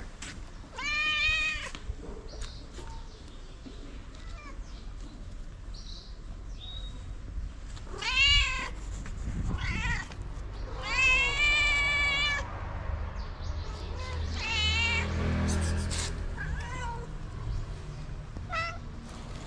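Cats meowing repeatedly for food: a string of loud meows, the longest about a second and a half near the middle, with shorter, fainter meows between them.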